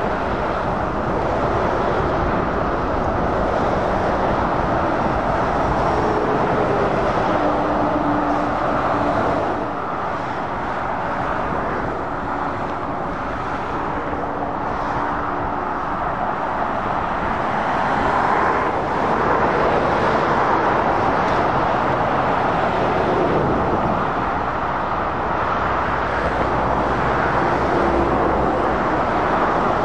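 Steady road traffic as heavy lorries and cars pass on a dual carriageway: a continuous rush of tyre noise with the hum of truck engines swelling in and out as vehicles go by.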